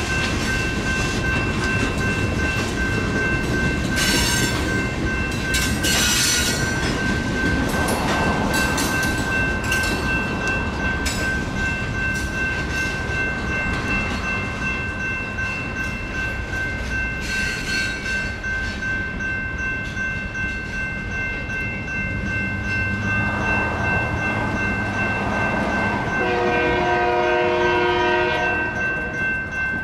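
A GS Type 2 electronic crossing bell rings steadily while the last freight cars roll through the crossing with wheel clatter and squeal. The train clears about halfway through, and a horn sounds in short pulses near the end.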